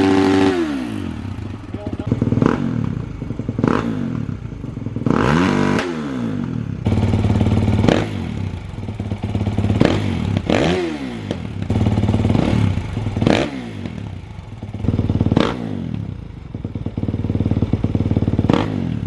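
Kawasaki KX450X single-cylinder four-stroke dirt bike engine idling and being revved in about nine quick throttle blips, each rising and falling in pitch. The engine's sound changes character about seven seconds in, as it switches between the stock and FMF 4.1 RCT exhaust clips.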